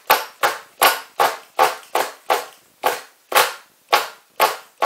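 Pull-start cord of a 1/16 nitro RC car's glow engine being yanked over and over, about two to three pulls a second, each a sharp zip that quickly dies away. The engine turns over but does not catch.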